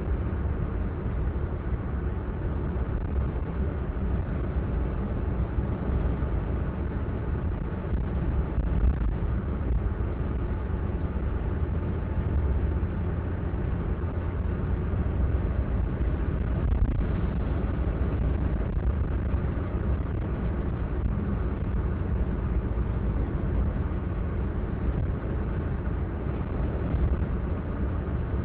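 Steady road and engine noise of a car driving, heard from inside the cabin: a constant low rumble with no changes.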